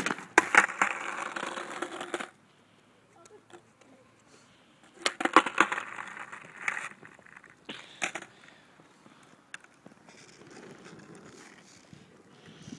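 Skateboard on asphalt during flip-trick attempts: a sharp clack of the board as it opens, then about two seconds of the board clattering and its wheels rolling over the rough asphalt. A second run of clacks and rolling comes about five seconds in, and a shorter clatter near eight seconds.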